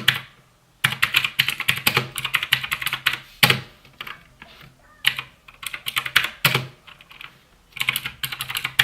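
Typing test on a TechNet mechanical RGB keyboard with blue switches: fast runs of key clicks in several bursts, with short pauses between them.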